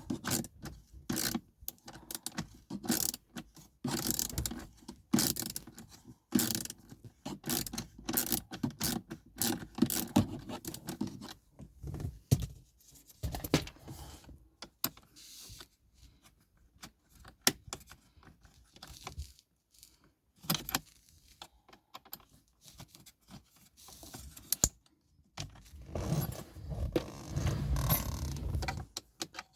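Irregular clicks, taps and rattles of hand tools on screws and plastic dashboard trim being worked loose, with a denser stretch of rustling and knocking near the end.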